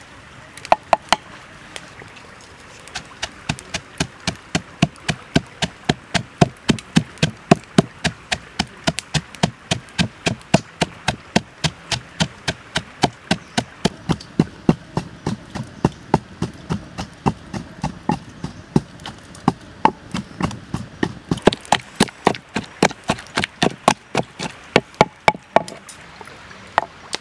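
Pestle pounding chilies and garlic in a wooden mortar: a steady run of dull knocks, about two to three a second, starting in earnest about three seconds in.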